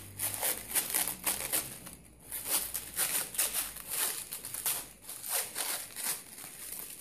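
Clear plastic wrapping crinkling and rustling as it is unwound by hand, in quick irregular crackles that thin out over the last couple of seconds.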